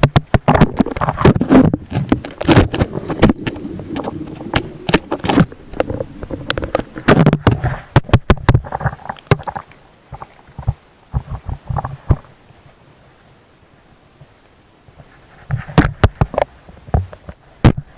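Footsteps and scrambling on loose volcanic rock, close to the microphone: a dense run of irregular crunches and knocks that pauses for a few seconds near the end of the first two-thirds, then starts again.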